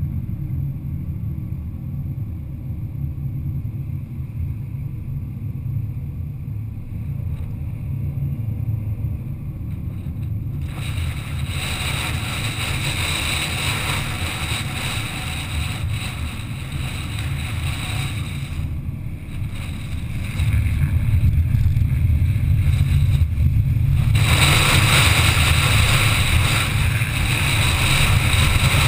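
Wind buffeting and road noise on the microphone of a camera riding on a moving vehicle: a steady low rumble, with a brighter rushing hiss that comes in about ten seconds in, fades briefly, and grows louder in the last few seconds.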